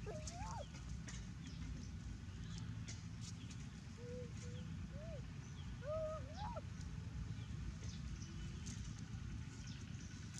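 Baby monkey giving short, high, arching coos: a few near the start, a string of them about four to five seconds in, and a louder pair about six seconds in. Faint scattered ticks of corn leaves rustling and a low steady hum run underneath.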